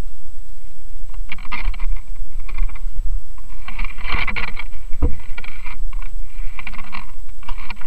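Abseiling gear and overalls scraping and rustling close to the microphone in irregular bursts, over a steady low rumble, with a sharp knock about five seconds in.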